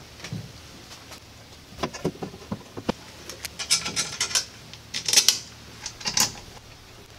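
Parts of a 3D printer's aluminium-extrusion frame being handled and fitted together: a quick run of knocks and clicks, then crinkling bursts from a small plastic parts bag.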